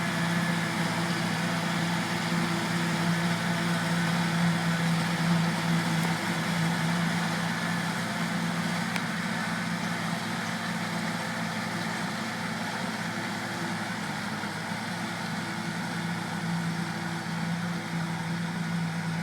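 John Deere 4450 tractor's six-cylinder diesel running steadily at working speed while chopping, a constant drone with no change in pitch.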